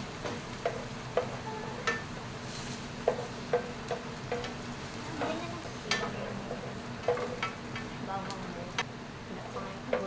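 Chopped onions and garlic sizzling in cooking oil in a pan as they are sautéed and stirred, with a cooking utensil knocking and scraping against the pan irregularly, about once a second.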